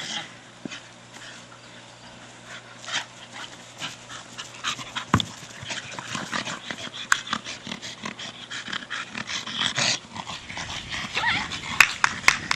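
Staffordshire bull terrier panting hard, worn out from play. Scattered sharp clicks and knocks run through it, the two loudest near the end.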